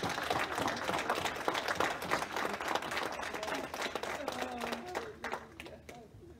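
Congregation applauding: many hands clapping together with a few voices among them, dying away about five to six seconds in.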